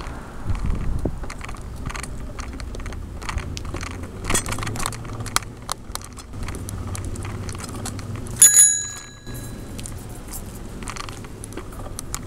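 Bicycle bell rung with a quick double ding about eight and a half seconds in, the ring fading over about a second. Underneath, the bike rattles and rumbles as it rolls over rough pavement.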